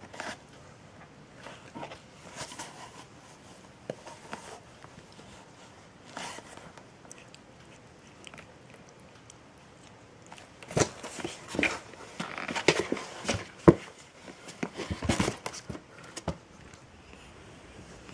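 Scuffing, rustling and soft knocks of a cat wrestling with and biting a hand inside a box. A few scattered scuffs come first, then a busy flurry of rustles and knocks for several seconds in the second half.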